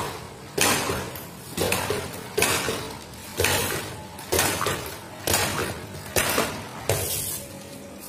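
WLtoys 12402-A RC truck dropping down tiled stairs one step at a time. Each landing on the next step gives a hard knock, about once a second, eight or nine times.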